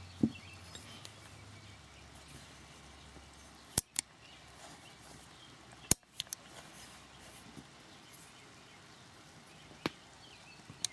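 Sharp metallic clicks of the steel parts of an M1 carbine trigger housing being handled, with the hammer and its spring newly fitted: about six separate clicks a second or more apart, the loudest about 4 and 6 seconds in.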